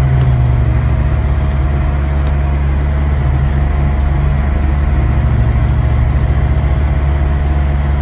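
Car heard from inside the cabin while driving slowly on a snow-covered road: a steady low rumble of engine and tyres, with a faint steady hum above it.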